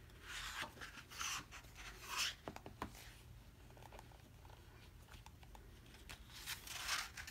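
Pages of a photobook being turned by hand: a few soft paper swishes and rustles, with a couple of light taps a little after two seconds in.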